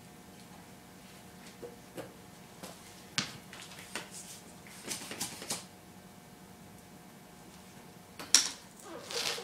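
Short hisses of air let out of a basketball through an inflation needle and pressure gauge, mixed with small clicks and handling knocks, as the ball is brought down to 4 psi. The loudest click and hiss come near the end.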